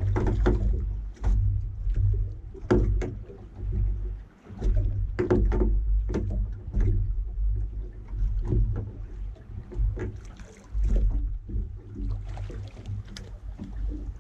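Gusting low rumble of wind and water around a small fishing boat, with scattered clicks and knocks from tackle being handled on deck.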